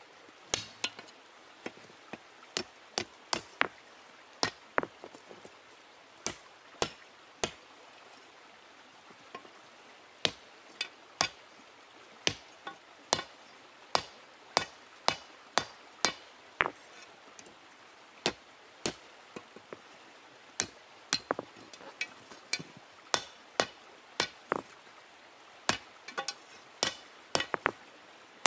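Hammer blows on iron being hand-forged into a log dog with stone tools: sharp single knocks with a short ring, struck irregularly from about half a second to two seconds apart, with a few short pauses.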